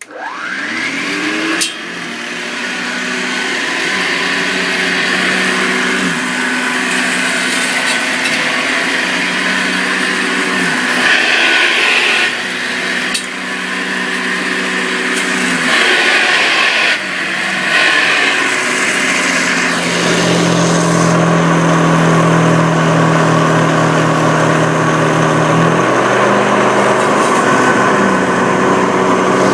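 Hoover upright vacuum cleaner switched on: its motor spins up over the first two seconds, then runs loud and steady, the pitch dipping and recovering several times and settling to a steadier hum about two-thirds of the way through.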